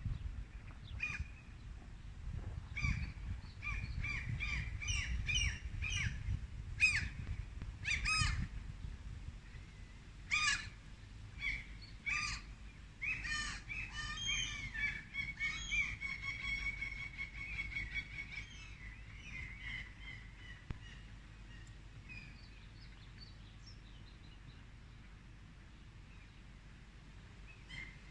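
Birds calling: many short, repeated calls, with a quick run of notes about halfway through that fades away after it. A low rumble lies underneath and eases off about eight seconds in.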